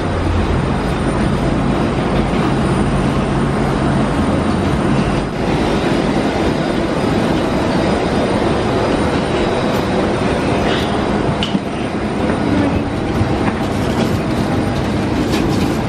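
Steady loud rumble and hiss of airport ramp noise heard from the jet bridge, with a faint high whine from aircraft or ground equipment running outside. There are a few footsteps on the jet bridge floor.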